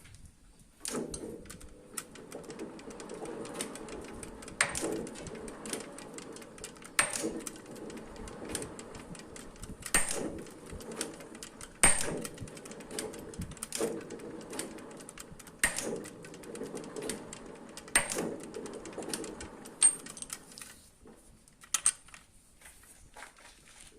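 Manual metal lathe running with a steady hum, with sharp clicks roughly every two seconds; the machine stops about 21 seconds in, leaving a few more clicks.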